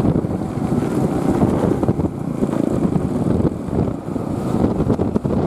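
Bus engine and exhaust rumbling close by, with wind buffeting the microphone.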